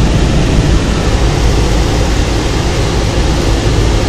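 Steady low rumble of a people-mover tram car running along its guideway, heard from inside the car.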